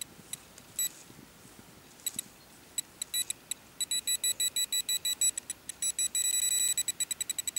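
Garrett Pro-Pointer pinpointer beeping as it is worked through the soil of a dug hole. A few scattered beeps come first, then from about four seconds in a fast train of beeps that briefly merges into one steady tone near the end: a very clear signal from a buried metal target.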